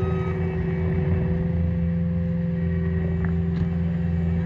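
Outdoor tornado warning siren holding a steady tone over a low rumble; the higher of its tones drops out about three seconds in.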